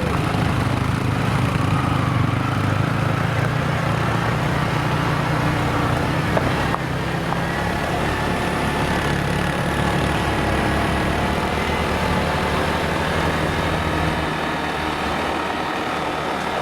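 The engine of a road-works machine running steadily, a continuous low hum with no breaks, easing a little about seven seconds in.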